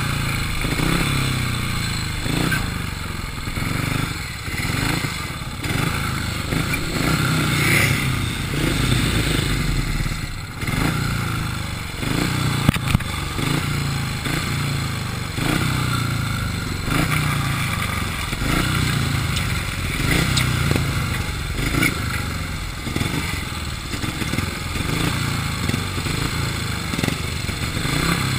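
Speedway motorcycle's single-cylinder methanol engine running hard, its revs rising and falling over and over, every second or two. A couple of sharp knocks stand out about halfway through.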